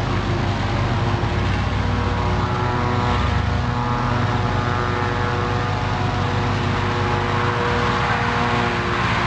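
Car engine running at a steady speed, a continuous low drone.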